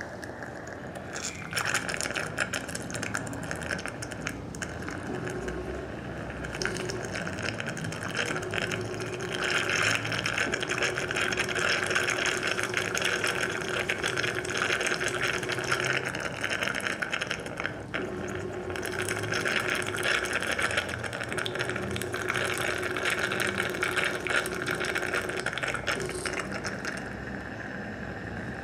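Dental surgical motor driving a contra-angle handpiece at low speed to work a threaded ridge expander into the bone. Its low hum starts and stops several times over a steady hiss of surgical suction and a fine crackle.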